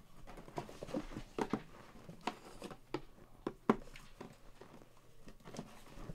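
Sealed white cardboard boxes being slid out of a cardboard shipping case and set down on a table: scattered light taps, scrapes and rustles, with one sharper knock a little past halfway.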